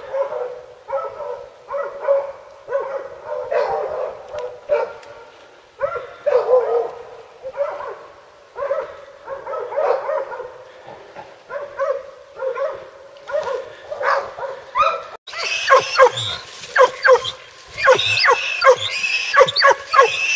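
Hunting dogs baying over and over, a call about every second. About three-quarters of the way through, the sound changes abruptly to faster, denser barking of dogs holding a boar at bay.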